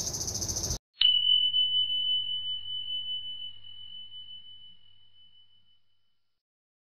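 Crickets chirping in a steady pulse until the sound cuts out just under a second in; then a single high bell-like chime sound effect strikes once and rings on one pitch, fading slowly over about five seconds.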